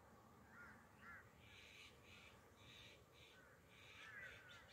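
Faint bird calls: a run of about five short, harsh calls in the middle, with a few brief chirps before and after.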